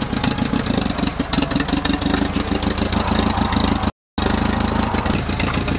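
Old tractor's engine idling steadily with an even, fast beat. The sound drops out for a moment about four seconds in, then the same idle carries on.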